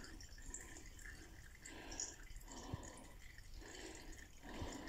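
Faint trickle and drip of used engine oil running in a thin stream from a Romet K125's crankcase drain hole into a plastic oil canister, the last of the oil still draining out.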